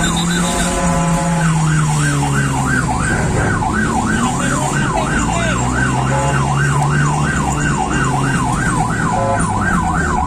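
Electronic emergency-vehicle siren: a steady tone for the first second and a half, then a fast yelp sweeping up and down about twice a second, over the hum of a vehicle engine.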